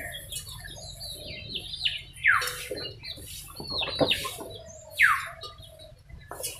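Birds calling: three loud whistles that slide down in pitch, a second or so apart, among softer short chirps.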